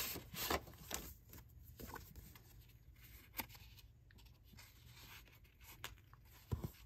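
Faint rustling and light taps of paper craft inserts being handled, with a few scattered small clicks and a soft thump near the end.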